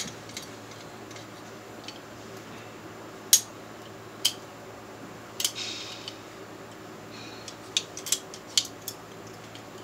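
Sharp metallic clicks and clinks, about ten in scattered groups, from hand tools and fittings being handled while hooking up a water heater's supply lines, with a brief scrape about five and a half seconds in, over a steady low hum.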